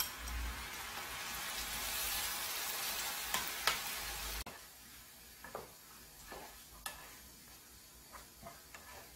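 Soaked, crushed instant ramen noodles going into a hot frying pan with scrambled egg and sizzling as they are stirred, with the utensil tapping against the pan. The sizzle cuts off suddenly about four and a half seconds in, leaving quieter scraping and taps of the spoon and spatula in the pan.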